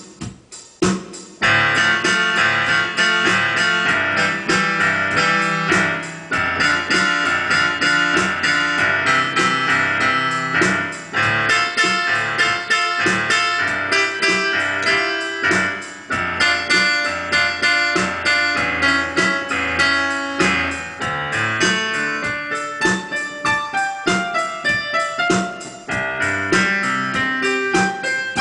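Digital piano played with both hands: a fast, busy piece of many quick notes ringing into one another, a few sparse notes at first and then the full texture about a second and a half in.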